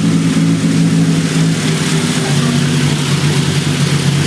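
Buick Grand National's turbocharged 3.8-litre V6 idling on its first start after a new heads and cam install. The idle steps down a little about two seconds in as it settles.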